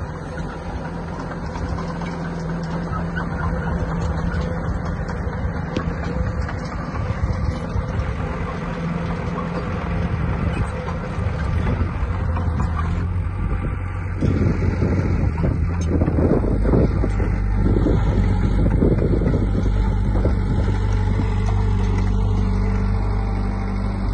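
Diesel engine of earthmoving machinery running steadily under work. About two-thirds of the way through the engine note changes, growing deeper and a little louder.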